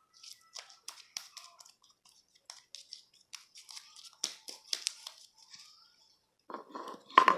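Sticky slime with small clear beads mixed in, being squeezed and stretched by hand: an irregular string of small crackles and sticky pops, with a louder crackle near the end.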